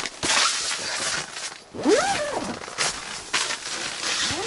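Rustling and crunching of someone moving about inside an ice-fishing tent, with two short squeaks that rise and then fall in pitch, one about two seconds in and one near the end.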